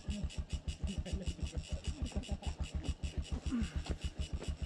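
Small engine idling with an even beat of about ten pulses a second.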